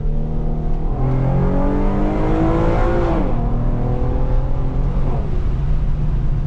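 Infiniti Q50 with a muffler-deleted exhaust, heard from inside the cabin, accelerating: the engine note rises for about two seconds, drops suddenly as the driver shifts or lifts, then settles into a steady cruise.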